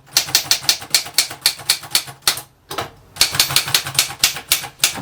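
Typing on a 1930 Erika 5 portable manual typewriter: a quick run of sharp keystroke clacks, about six a second, breaking off briefly in the middle and then going on.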